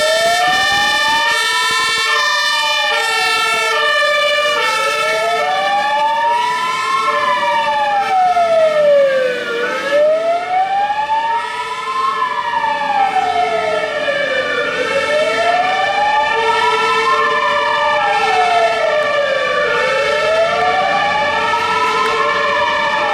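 Two fire-engine sirens at once: one slow wail rising and falling about every five seconds, and one two-tone siren stepping back and forth between a high and a low note.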